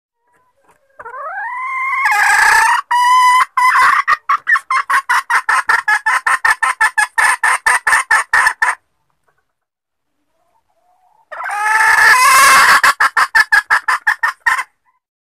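Junglefowl hen calling: a rising squawk that breaks into a fast run of clucks, about four a second, given twice with a pause between. A hen call of the kind played to lure wild junglefowl cocks.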